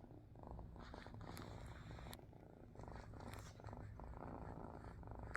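Baby kitten purring steadily and faintly, close up, without being stroked, with a couple of light clicks about one and two seconds in.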